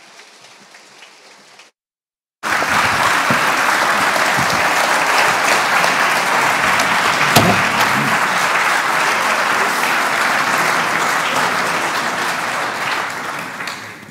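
Audience applauding. It starts abruptly about two seconds in, runs steadily, and fades near the end.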